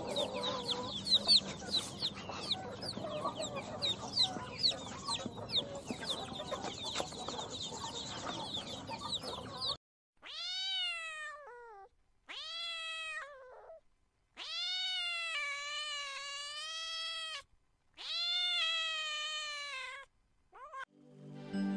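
Chicks peeping rapidly for about ten seconds, then a cat meowing five times with short gaps, the third meow long and drawn out and the last very short.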